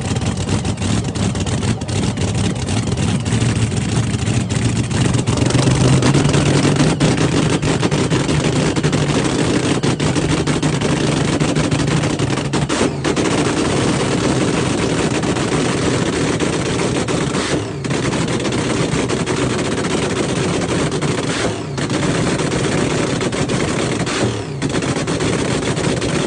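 Drag racing car's engine running loud, with a rapid, rough crackle like gunfire. Its note swells a little several seconds in, and it drops out briefly four times in the second half.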